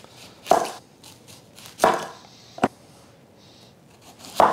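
Chef's knife cutting through a red onion and striking a wooden cutting board: four separate cuts spaced unevenly, roughly a second apart.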